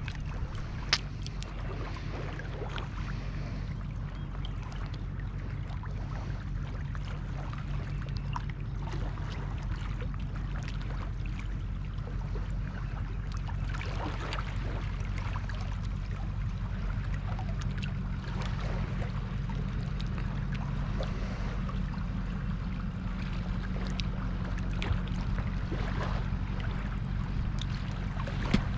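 Steady low drone of a motorboat engine out on the lake, with scattered small clicks and one sharper click about a second in.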